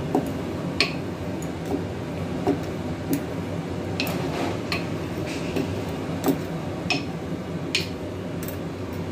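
Wooden rolling pin rolling parotta dough thin on a stone slab: irregular sharp clicks and taps, roughly one a second, over a steady low hum.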